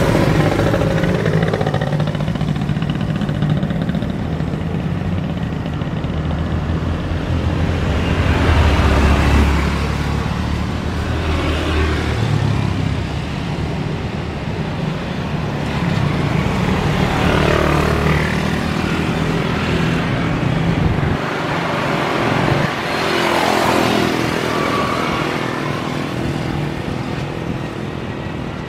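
Passing road traffic: vehicle engines going by one after another, each rising then falling in pitch as it passes, over a steady low engine hum.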